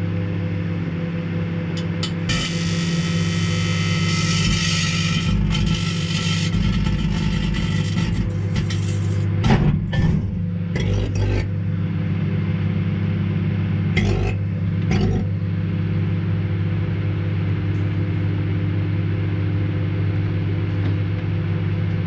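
Microwave oven running with its steady hum while a full disposable butane lighter heats inside. A couple of seconds in, a whooshing hiss of escaping gas runs for about six seconds, then several sharp pops come around the middle and two more a few seconds later as the lighter bursts and melts.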